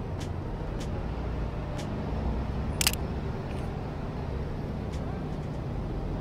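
Steady low rumble of city street traffic, with one sharp camera shutter click about three seconds in from a Fujifilm X-S10 mirrorless camera. A few fainter clicks sit under the rumble.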